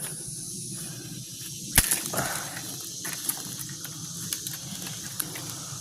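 Footsteps rustling through dry leaves and brush, with one sharp snap about two seconds in, over a steady high insect hiss.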